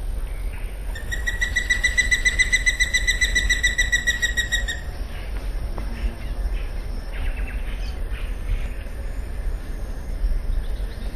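Rainforest wildlife: a steady, high, buzzing trill starts about a second in and runs for about four seconds, followed by scattered faint bird chirps over a low steady rumble.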